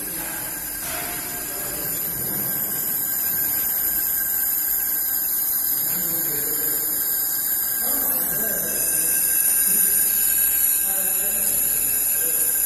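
Steady machine hiss with several thin, high-pitched whining tones from a handheld laser welding setup, growing gradually louder. Muffled voices sit faintly underneath.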